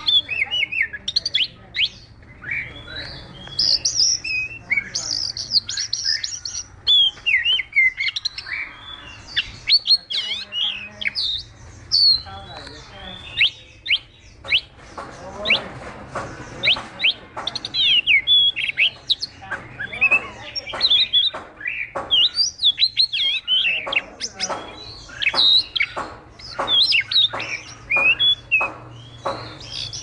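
Chinese hwamei (họa mi) singing a long, varied song of loud whistled phrases and fast slurred notes. About two-thirds of the way through, it breaks into runs of quick, sharp repeated notes.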